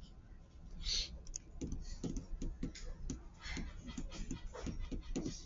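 Pen writing and tapping on a paper worksheet on a desk: a run of irregular small clicks and short scratches, with a low steady hum underneath.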